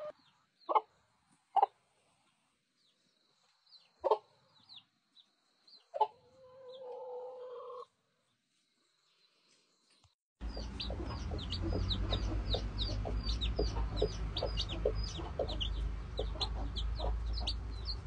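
Hens clucking now and then, with one drawn-out call near the middle. After a cut, baby chicks peep rapidly, several high falling peeps a second, over a hen's repeated low clucking and a steady low rumble.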